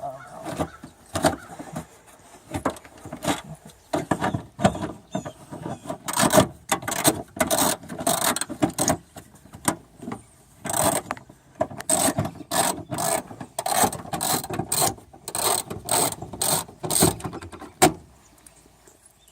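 Ratchet wrench clicking in quick runs of sharp clicks as 10 mm fasteners on a car's trunk lid are undone. The clicks are sparse for the first few seconds and busiest through the middle.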